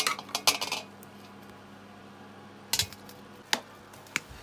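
Metal utensil clinking against a metal pot while boiled potatoes are mashed: a quick run of clinks at the start, then a few single knocks later on.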